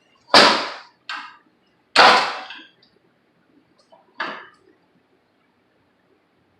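Hammer blows on metal: four strikes with a short ring, the first and third the heaviest. They are knocking a stuck pump off a small pressure washer engine's shaft.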